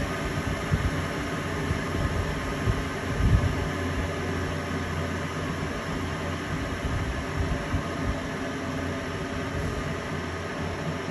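Besly Beloit Model 318 horizontal disc grinder running free with no work on the disc: the steady hum and whir of its 5 HP spindle motor and spinning 9-inch disc, with a low bump about three seconds in.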